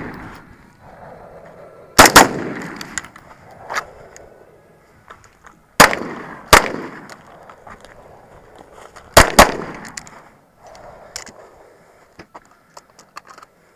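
Five close gunshots, each trailing off in an echo: a single shot, then two less than a second apart, then a quick pair. Fainter clicks and knocks come between the shots.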